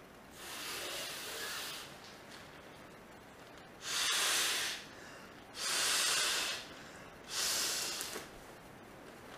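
A person blowing up an inflatable camping pillow by mouth: four long breaths of rushing air into the valve, the first softer, the last three louder.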